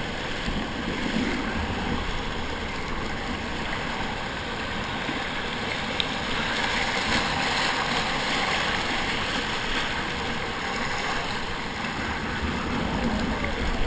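Rushing whitewater of a river rapid heard from a kayak running it: a steady, even rush of water.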